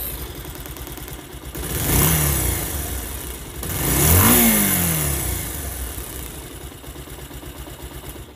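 Bajaj Pulsar's single-cylinder engine idling and blipped twice on the throttle, a short rev about two seconds in and a louder one about four seconds in, each rising and falling back to idle. With the balancer and weight-pinion gear timing marks set correctly, it runs with the even 'shin shin shin' note that is the original sound, no longer cracking.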